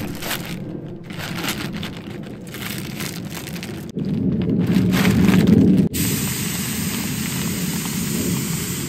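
Plastic compression bag crinkling and rustling as it is zipped shut and handled. In the last few seconds, air hisses out through its opened valve in a steady rush as the bag is pressed down.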